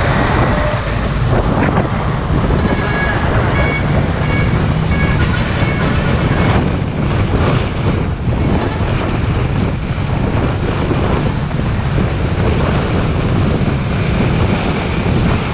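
Steady road-traffic rumble mixed with wind on the microphone of an action camera travelling along a busy street, with trucks passing close by near the start.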